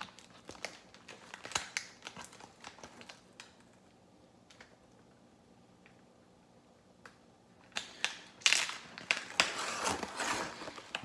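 A cardboard shipping box being cut open and unpacked: small scrapes and clicks of a pen knife on packing tape and cardboard, a quiet pause of a few seconds, then loud rustling and crinkling of cardboard flaps and packing material near the end.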